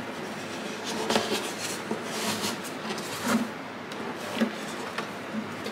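Handling noise from an unfinished wooden acoustic guitar body: rubbing and a few light knocks as foam is wedged into the sound hole and the body is lifted and turned over.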